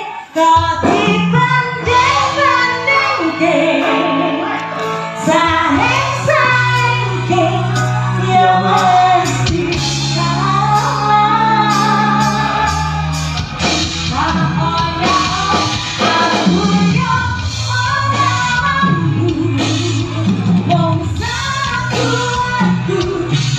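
Live campursari music: a woman sings into a microphone over gamelan accompaniment with steady low bass notes underneath.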